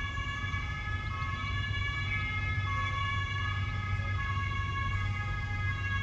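Emergency sirens sounding during a building fire: several steady high tones overlapping, held without a break, over a low hum.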